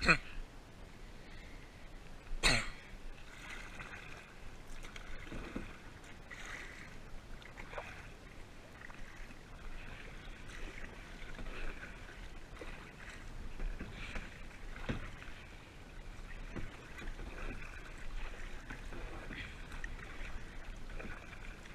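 Kayak being paddled, with water noise from the strokes. A sharp knock, the paddle hitting the kayak, comes about two and a half seconds in, and fainter knocks follow now and then.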